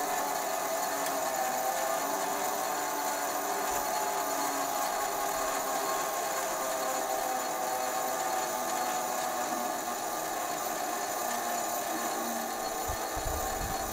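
Truck-mounted crane running with a steady mechanical whine as it slowly lowers a large log from the truck bed. A few dull low thumps near the end.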